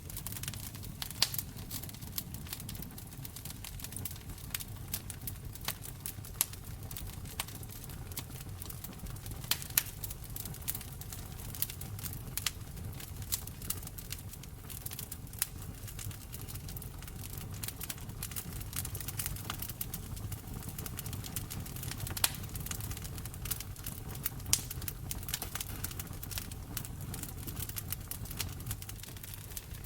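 Wood fire crackling in a fireplace: a steady stream of irregular small pops and snaps, with a few louder pops, over a low rumble of the flames.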